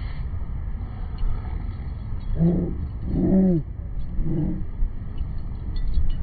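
A dog vocalizing in play: three short, pitched calls in quick succession about two and a half seconds in, each under half a second, over a steady low rumble.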